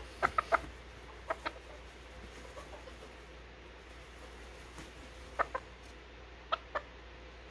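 Serama bantam rooster clucking in short calls, in small groups: a cluster of three at the start, then pairs about a second in and again near the end, complaining as it is ruffled and handled.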